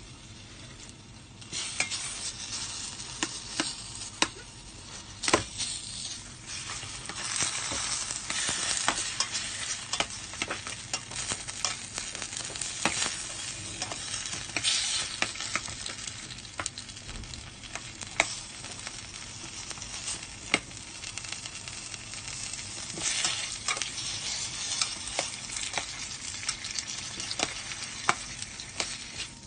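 Garlic, onion and tomato sizzling in hot oil in a stainless steel pot as they are stirred, the utensil clicking and scraping against the pot many times. The sizzle grows louder about a second and a half in.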